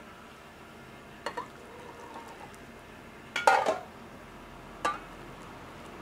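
Stainless-steel pots clanking and clinking as broth is poured into ramen bowls: a few short metallic knocks, the loudest a quick cluster about three and a half seconds in.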